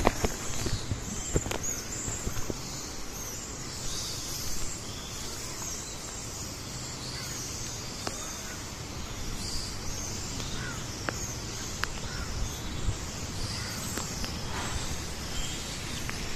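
Roosting flying foxes chattering: many short, high squeaks and squawks overlapping one another, with a few sharp clicks.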